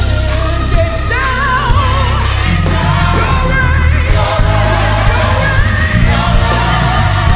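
Gospel choir singing with a lead voice sliding and wavering through long held notes over a steady bass and band accompaniment.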